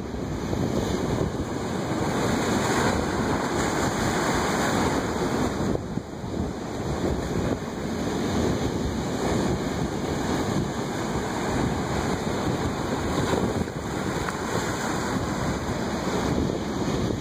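Ocean surf: waves breaking and washing up the shore in a continuous rush, easing briefly about six seconds in, with wind buffeting the microphone.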